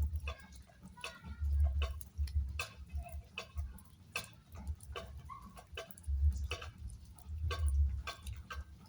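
Raindrops tapping close by at irregular intervals, a few sharp ticks a second, with bursts of low rumble underneath.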